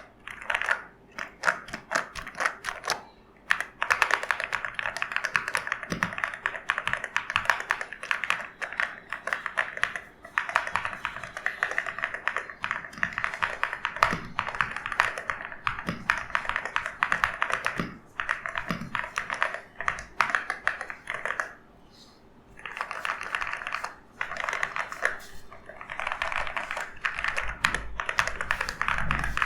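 Steady fast typing on an EWEADN V82 transparent mechanical keyboard: a dense run of keystroke clicks with a few brief pauses.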